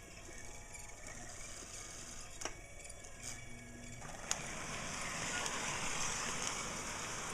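A 1930s Lionel tinplate O gauge electric locomotive and its cars starting up on the track under a faint steady hum: a couple of sharp clicks, then a whir that builds about four seconds in and holds. The owner suspects a break in the track line is cutting its power.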